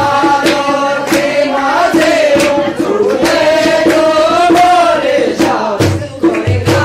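Pahari Nati folk music: men singing in chorus in long, bending held lines over sharp percussive strikes about twice a second. A deep drum beat comes back in near the end.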